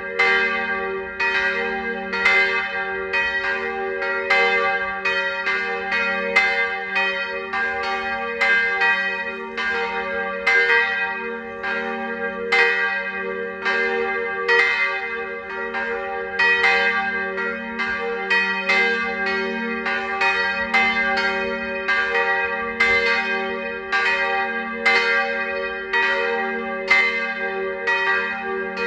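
Swinging church bells ringing to call a service: overlapping strikes in an uneven rhythm, about one or two a second, over a continuous lingering hum.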